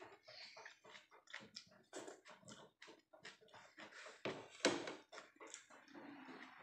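A person chewing with closed lips and smacking her lips while eating by hand: irregular small clicks and smacks several times a second, with one louder smack about four and a half seconds in.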